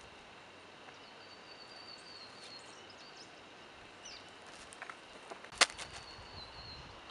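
Quiet outdoor bush ambience with faint, high bird chirps and short whistled glides. A single sharp knock a little over five seconds in is the loudest sound.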